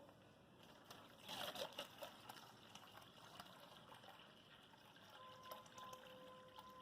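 Faint trickle of water being poured into a polythene bag, loudest between about one and two and a half seconds in, with small crinkles and clicks.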